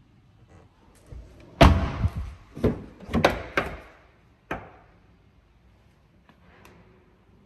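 Car door thumps and clunks: a loud knock about one and a half seconds in, then four or five more over the next three seconds, fading to quiet.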